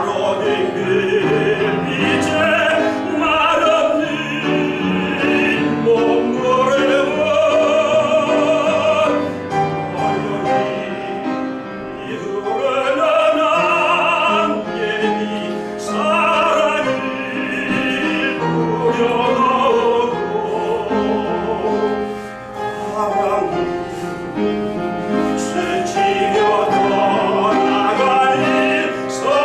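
Tenor singing a Korean art song (gagok) in classical style with vibrato, with piano accompaniment.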